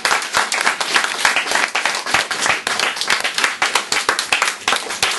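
A small audience applauding, many hands clapping densely and irregularly.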